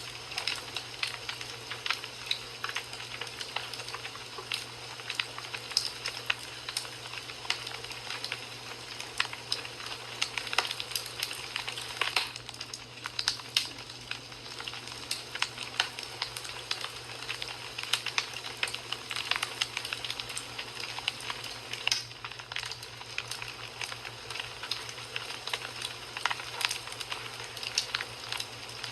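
Fire in a fireplace crackling, with irregular sharp pops and snaps over a steady hiss.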